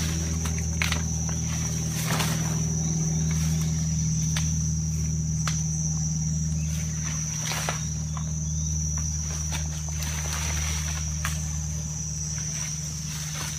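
Steady high-pitched insect trill, crickets or similar field insects, over a steady low hum, with scattered short knocks every second or two.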